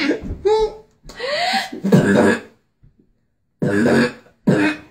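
A woman beatboxing: short bursts of vocal percussion and breathy mouth sounds in separate phrases, with a break of about a second near the middle before she starts again.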